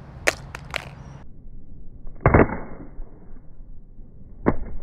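iPhone 6S Plus dropped flat on its back onto stone paving: a loud clattering impact about two seconds in, then another sharp knock near the end as it bounces and lands again. A few light clicks come in the first second.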